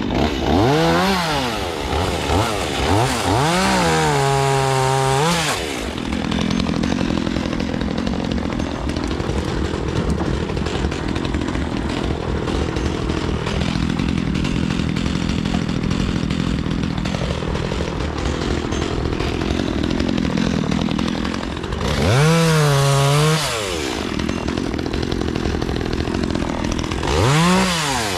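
Chainsaw running steadily at low revs and revved up hard four times in short rising-and-falling bursts: near the start, about four seconds in, and twice near the end.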